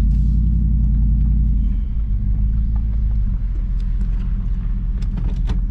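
Vehicle engine and tyres making a steady low rumble, heard inside the cab while driving slowly over a dirt lot. A few short clicks come near the end.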